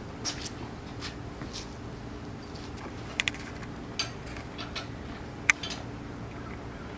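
Scattered metallic clicks and clinks from a car jack being lowered by hand, with two sharp clicks close together about three seconds in and another about five and a half seconds in.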